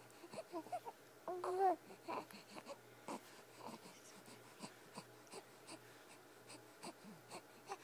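Baby cooing: one short coo that wavers in pitch, about a second and a half in, with faint breathy mouth sounds and small clicks around it.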